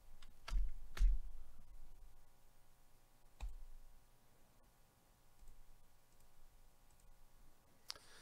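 A few separate clicks of a computer mouse and keyboard. Two sharp ones come close together about half a second and one second in, another comes around three and a half seconds, and a faint one near the end.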